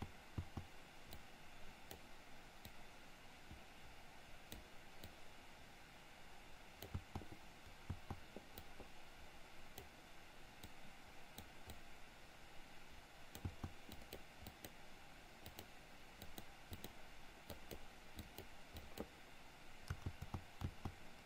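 Faint, scattered clicks of a computer mouse and keyboard over a steady low hiss.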